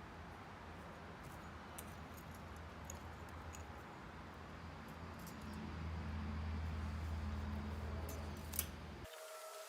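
A steady low machine hum with a few faint scattered ticks. It cuts off suddenly near the end, leaving a quieter room tone.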